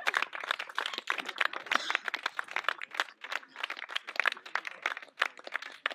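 Potato chips being crunched and chewed close to the microphone: a dense, irregular run of crisp crackles.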